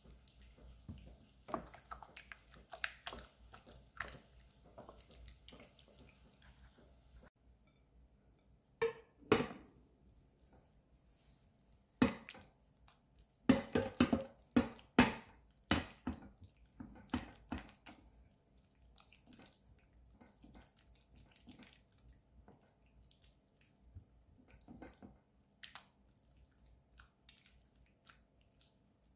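Silicone spatula stirring and mashing mascarpone, butter and egg yolks in a glass bowl: soft squelching with irregular clicks and knocks of the spatula against the glass, loudest in a cluster about halfway through.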